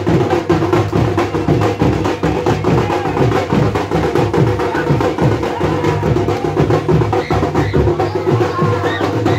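Muharram procession drums beating a fast, even rhythm of sharp strokes, with men's voices shouting underneath.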